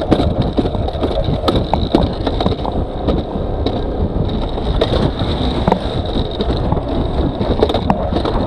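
Alpine coaster sled running fast down its steel rail track, its wheels rumbling continuously with frequent sharp clacks over the rail, under a steady high whine.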